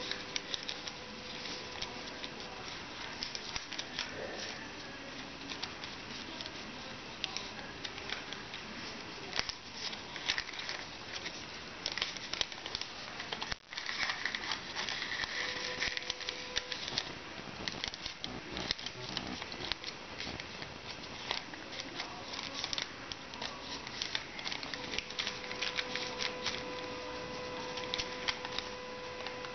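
Sheet of origami paper being folded and creased by hand: continuous crisp rustling and crinkling with many small ticks as fingers press the creases down. A faint steady tone comes and goes behind it.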